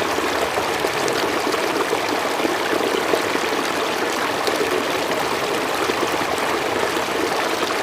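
River water flowing over stones, a steady rushing and babbling that stops abruptly at the end.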